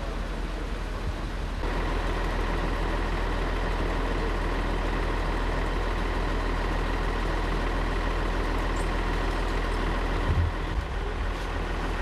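Heavy vehicle engine idling: a steady low rumble with a thin steady whine over it, a little louder from about two seconds in. There is one low thump near the end.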